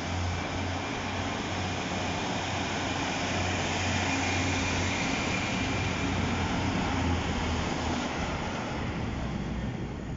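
Class 156 Super Sprinter diesel multiple unit pulling out and passing close by, its underfloor Cummins diesel engines working under power over the rumble of the wheels. The sound grows loudest midway and fades as the train draws away near the end.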